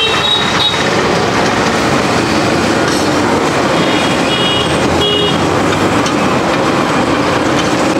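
A stuffed paratha sizzling in oil on a large flat iron tawa, heard over steady road traffic. A few short high beeps come near the start and again about four seconds in.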